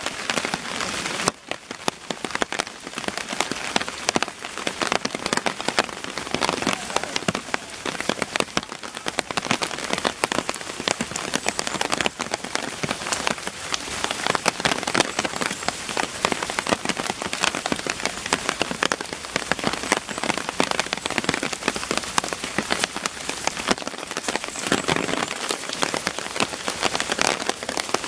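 Heavy rain falling steadily, a dense patter of drops striking close by.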